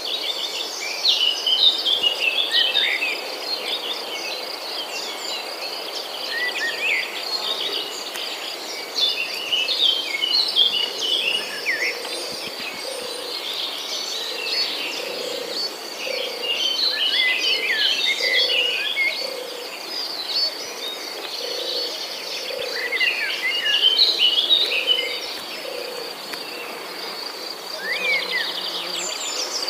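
Several birds chirping and twittering in quick, overlapping short calls, over a steady high insect trill like crickets. A low note repeats about once a second through the middle stretch.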